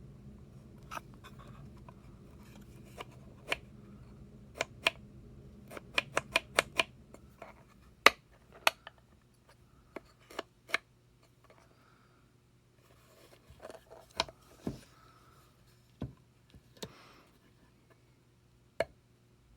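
Wooden puzzle box pieces clicking and knocking as they are slid, pushed and tried by hand: scattered sharp clicks, a quick run of them about six seconds in, and the loudest knock about eight seconds in.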